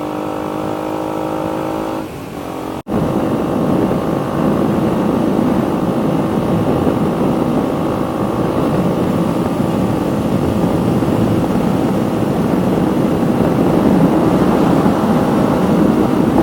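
A 2019 KTM Duke 125's single-cylinder engine running through an aftermarket full exhaust system with the dB killer fitted, on the move. For about two seconds the engine note is steady and even. After a brief drop-out about three seconds in, it runs louder and noisier.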